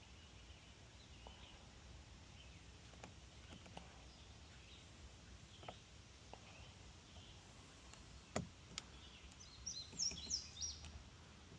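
Faint outdoor background with small birds chirping now and then, and a few sharp clicks, the loudest about eight seconds in. A busier run of high chirps comes near the end.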